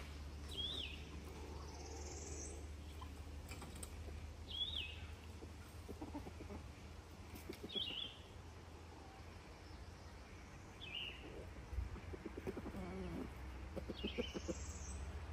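Faint outdoor birdsong: a small wild bird gives a short high chirp every few seconds. Young Rhode Island Red chickens make soft, low clucking calls here and there, mostly in the second half.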